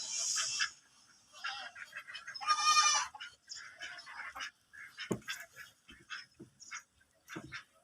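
A goat bleats once, a loud wavering call about two and a half seconds in. Scattered short clicks and rustles follow, with a brief hiss at the start.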